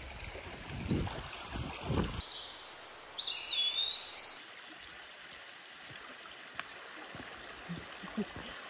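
Creek water running over rocks, with low handling rumble, for about two seconds. The sound then cuts to a quieter hiss, broken about three seconds in by a high whistling tone that dips and rises for about a second.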